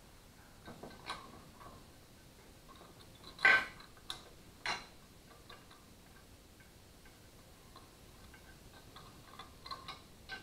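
Scattered metallic clicks and clinks from a small engine's connecting rod and crankshaft being handled in the open crankcase. The loudest is a short ringing clank about three and a half seconds in, and light ticks come near the end.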